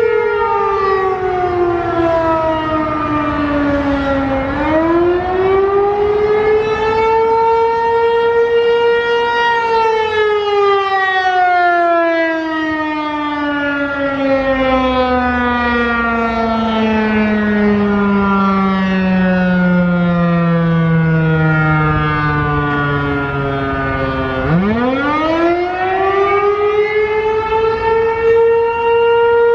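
Federal Signal 508 outdoor warning siren sounding a wail that dips and climbs back, then sinks slowly for a long stretch as the attack signal winds down. Near the end it climbs quickly back up and holds one steady pitch, the start of the alert signal.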